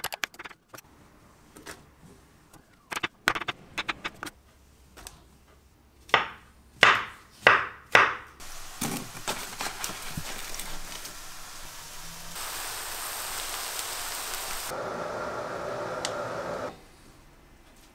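Knife chopping through mushrooms onto a wooden cutting board, a scattering of light taps and then four louder knocks. This gives way to the steady sizzle of mushrooms and onions frying in a pan, which cuts off near the end.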